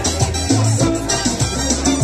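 Salsa music with a moving bass line and a steady percussion beat.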